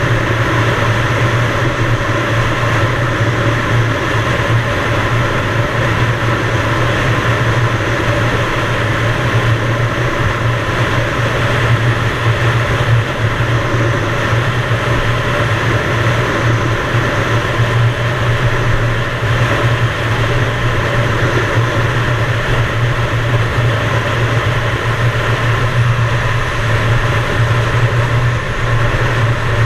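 Yamaha DT175 single-cylinder two-stroke dirt bike being ridden at a steady, even pace, its engine running with a constant noisy rush over it.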